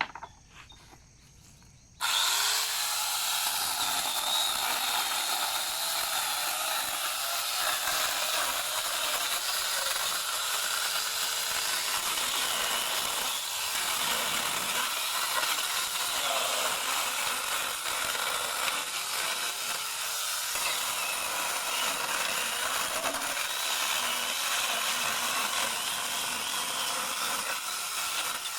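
Angle grinder with a chainsaw attachment starts suddenly about two seconds in and runs steadily, its chain cutting through firewood.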